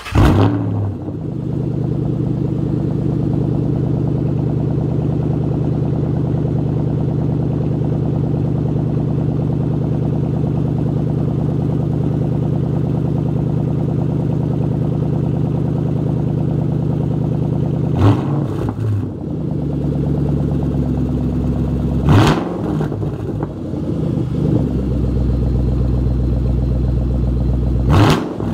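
2013 Shelby GT500's supercharged 5.8-litre V8 through a Magnaflow off-road race exhaust, flaring up right after start-up and then settling into a steady idle. In the last ten seconds it is blipped three times, each a short, sharp rev that drops straight back to idle.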